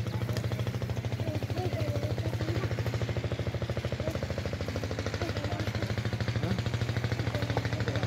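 A small engine running steadily with a fast, even beat.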